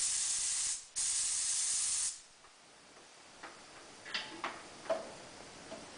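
Two bursts of compressed-air hiss from the pneumatic controls of a Bright LC 885 automatic tyre changer, each about a second long with a short break between them, followed by a few light clicks.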